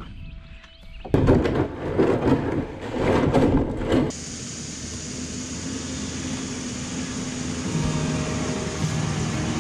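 Plastic kayak hull dragged over dirt and grass in a few heavy scraping pulls. About four seconds in it gives way to the steady, slowly rising drone of a Toyota Land Cruiser HZJ75 troop carrier's diesel engine driving along a dirt track.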